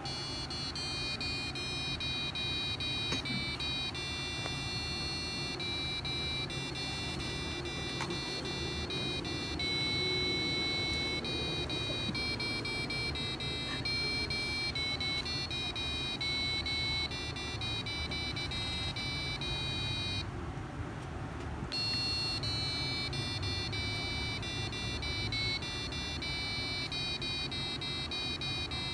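Arduino UNO-driven piezo buzzer playing a song as a melody of high, beeping notes that change pitch every fraction of a second, with a short break about twenty seconds in.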